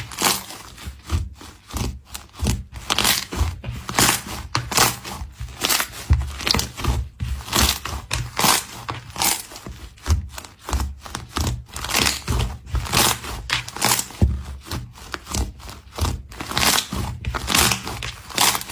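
Slime being squeezed and worked by hand, giving an irregular run of short crackling, crunchy pops, about two or three a second.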